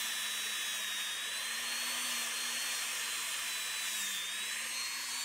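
Handheld rotary tool running steadily with a high whine, its Scotch-Brite abrasive wheel polishing small brass clock parts; the pitch sags briefly near the start and again about four seconds in as the wheel is pressed onto the brass.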